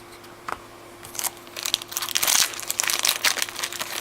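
Plastic trading-card pack wrapper crinkling and crackling as it is pulled open and handled, after a single click about half a second in.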